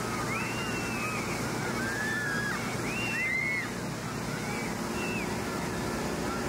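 Steady rushing hiss of a fire hose spraying a broad mist of water, with children shrieking several times over it in short high rising-and-falling squeals.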